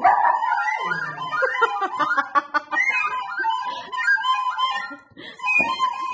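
A recorder playing a held note while two Maltese dogs howl along, their howls wavering up and down above it, with a short break about five seconds in.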